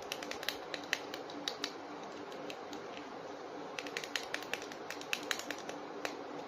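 Hard plastic action figure being handled: scattered light clicks and taps of plastic, irregular, in clusters near the start and again from about four seconds in.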